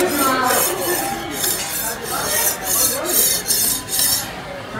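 Metal spatula scraped in quick repeated strokes across a flat iron teppan griddle, a rasping hiss at about two to three strokes a second that stops about four seconds in.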